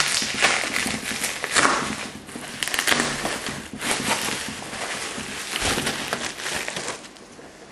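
Packaging being handled during an unboxing, rustling and crinkling in irregular bursts that die down near the end.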